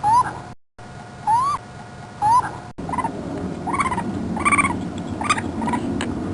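Animal calls: short rising calls, about a second apart. After an abrupt cut comes a run of several shorter calls over a rustling background.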